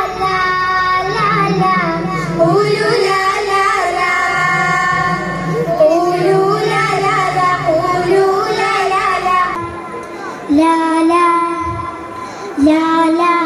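Group of children singing an Arabic song together into microphones; about nine and a half seconds in it changes to a single girl singing solo.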